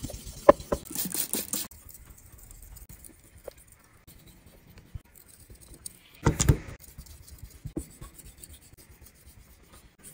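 Yanagiba blade scraping across a whetstone in sharpening strokes: a cluster of short gritty scrapes and clicks in the first second and a half, then one louder stroke about six seconds in, with little sound between.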